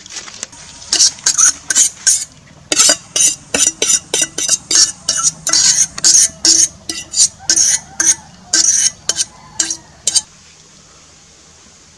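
Metal utensil scraping and clinking against an aluminium cooking pot while stirring and tossing noodles, in quick repeated strokes of about three a second. The strokes stop shortly before the end.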